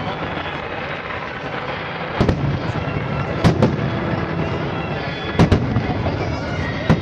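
Aerial fireworks shells bursting with sharp booms: a quick pair about two seconds in, one at about three and a half seconds, another quick pair at about five and a half seconds, and one more at the very end, over steady background noise.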